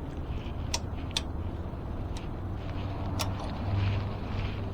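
A handful of sharp, short clicks at uneven intervals from hand tools and e-bike brake parts being worked on, over a low steady hum.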